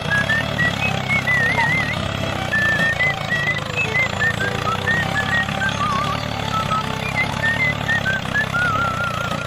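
A vehicle engine running steadily with a low rumble, with many short, wavering high chirps on top.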